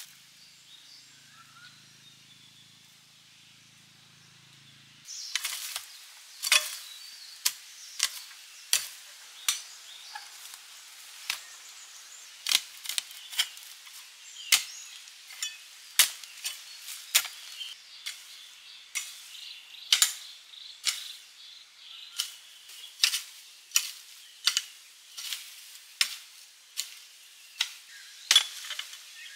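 A blade chopping: sharp, irregular strikes at about one and a half a second, starting about five seconds in after a quiet opening.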